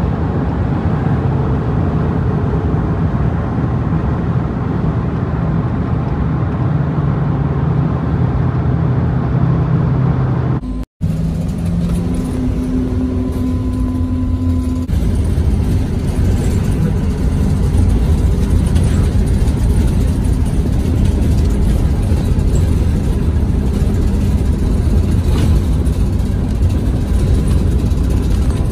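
Ride noise inside a moving transit bus: a steady engine hum and low road rumble. The sound cuts out for a moment about eleven seconds in and resumes as a deeper rumble.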